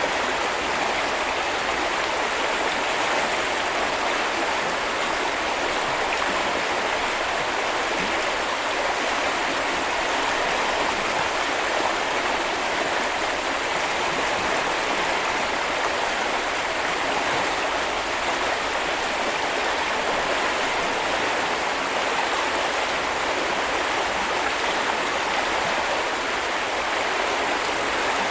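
Shallow river or brook flowing steadily, an even rushing and babbling of water over stones.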